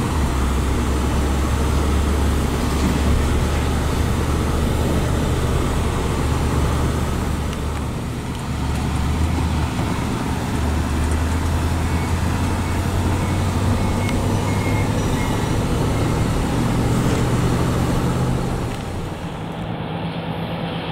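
A 1953 Oldsmobile Super 88's 303 cubic inch V8 running steadily as the car drives along, heard from inside the cabin with road noise; the engine note dips about eight seconds in and picks up again. Near the end the sound turns quieter as the car is heard driving by from outside.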